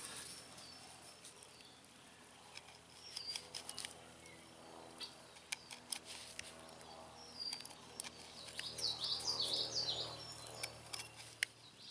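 Small scratchy clicks of a Flexcut palm gouge cutting into the end grain of a wooden limb round, scooping out the perimeter of the hollow. About nine seconds in, a songbird sings a quick run of high chirps, the loudest sound here.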